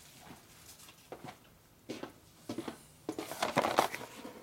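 A cardboard gasket-set box being handled and opened on a workbench: a few light knocks at first, then denser rustling and crinkling of the box and its packaging from about three seconds in.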